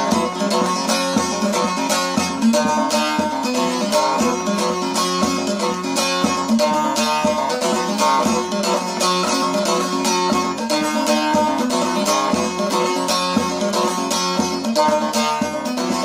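Bağlama (saz), the long-necked Turkish lute, played solo with fast, even strumming over a steady low drone note, as an instrumental interlude in an Alevi hymn.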